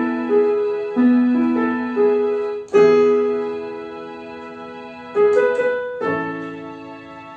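Electronic keyboard in a piano voice playing a slow song melody, single notes over held chords, with a fuller chord struck about three seconds in and left to fade.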